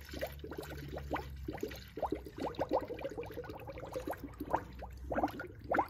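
50/50 antifreeze coolant being poured from a plastic jug into a plastic funnel on a car's cooling system, with a run of short, irregular glugs and splashes.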